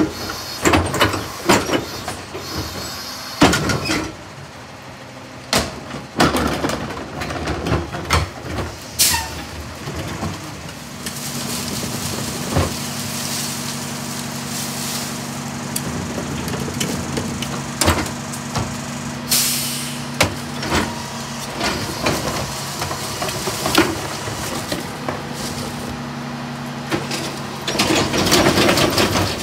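Heil DuraPack 5000 rear-loader garbage truck at work: a cart tipper bangs a cart against the hopper, and trash and tree branches thud into it. From about 11 seconds in, the truck's engine and hydraulics run with a steady hum under further knocks, and a short hiss of air comes about two-thirds of the way through.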